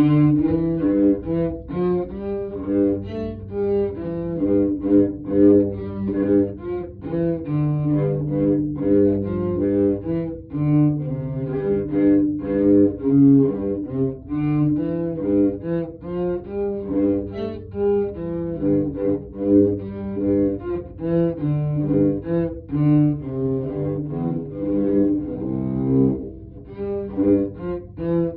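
Cello played with the bow in a sound-point (contact-point) practice exercise: a series of sustained notes, each held about a second before the next.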